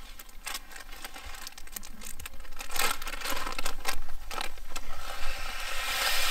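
Plastic food pouch crinkling as it is handled and opened. Near the end, dry instant rice pours from it into a cooking pot with a dense hiss.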